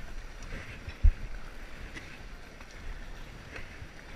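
River water rushing around an inflatable raft, with wind buffeting the microphone. A sharp low thump about a second in.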